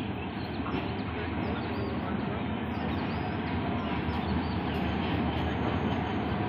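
Diesel locomotive engine running as the train rolls slowly into the platform, a steady low hum that grows a little louder, mixed with the hubbub of a crowded station platform.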